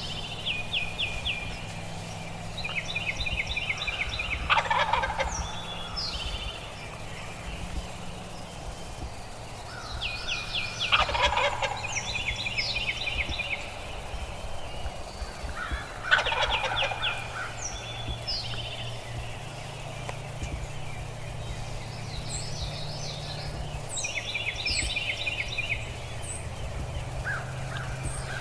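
Wild turkey gobbler gobbling, three loud rattling gobbles about six seconds apart, with a thinner, higher rapid chatter in between.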